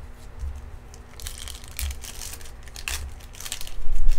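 Foil trading-card pack wrapper crinkling and tearing as it is pulled open by hand, in several short rustles. A louder dull bump comes near the end.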